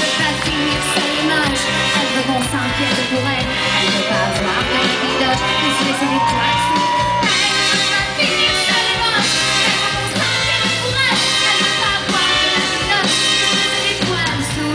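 Live pop-rock band playing, with a woman singing into a microphone over electric guitar and drums, loud and continuous.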